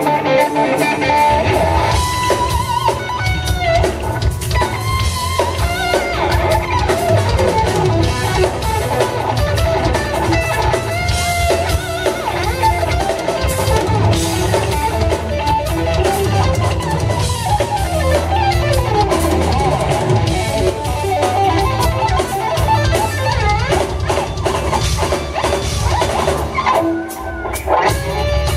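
Live instrumental rock played by a trio: an electric guitar leads with fast, gliding notes over bass guitar and a drum kit, with bass and drums coming in within the first second.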